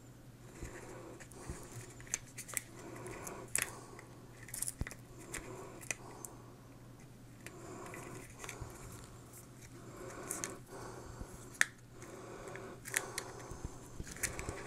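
Hands handling small plastic car-radio wiring parts and their plastic bags: scattered light clicks and brief rustles, with a faint steady hum underneath.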